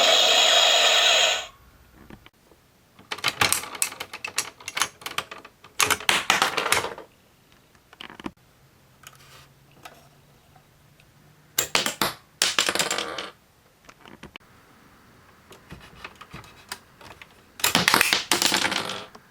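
Hard plastic parts of a DX Castle Doran toy clicking and rattling as it is handled, in three spells of rapid clicks separated by quiet pauses.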